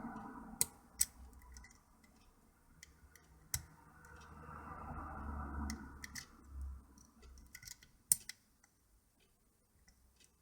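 Lock-pick hook and tension tool working the pins in a pin-tumbler rim cylinder's keyway: several sharp metallic ticks and scrapes, with two slow swells of soft rushing noise at the start and about five seconds in. Few pins are setting, so there are not many clicks.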